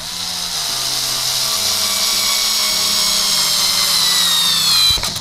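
Cordless drill-driver driving a wood screw into a wooden board: a steady motor whine that falls slowly in pitch, dips further and stops about five seconds in.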